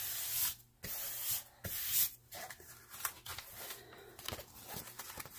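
Hands rubbing and smoothing over a diamond painting canvas's protective cover sheet: three strong swishing rustles in the first two seconds, then softer rustling and small ticks as the sheet is handled.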